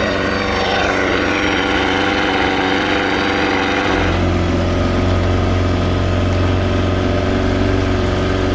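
Motor of a small 16-foot boat running under way, its note climbing over the first couple of seconds, then settling into a steady drone with a deeper rumble from about four seconds in.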